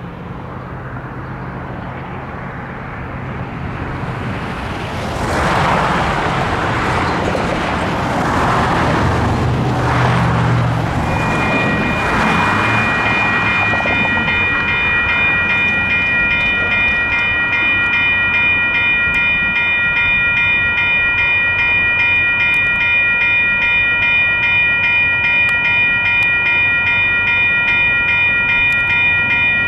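Road traffic swells and fades a few times, then about eleven seconds in the crossing's Western-Cullen-Hayes electronic bells start ringing rapidly and keep on, a bright repeating ding that signals the crossing has activated for an approaching train.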